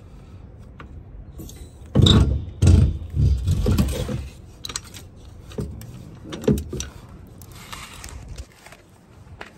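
Metal objects clanking, rattling and scraping about two seconds in, followed by a few lighter knocks.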